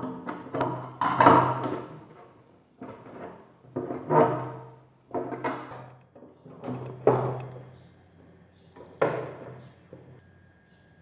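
Cover of a Singer sewing machine being put back on its casing: a series of about seven knocks and clatters, roughly a second apart.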